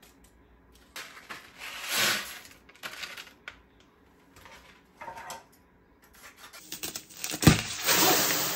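Plastic rice packets being snipped open with scissors and crinkled, and rice poured from them into a stainless-steel mesh strainer, the grains rattling into the metal. A sharp knock a little before the end is the loudest sound.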